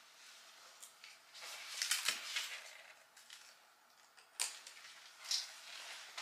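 A cat harness and leash being handled and fastened: a flurry of rustles and clicks about two seconds in, then two sharp clicks near the end.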